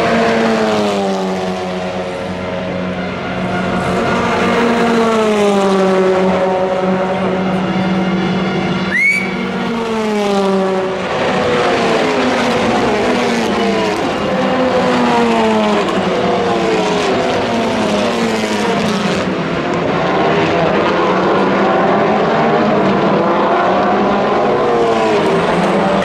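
Several WTCR touring cars' turbocharged four-cylinder engines revving up and falling back through the gears as they run past, the notes overlapping. About nine seconds in there is a brief sharp squeak.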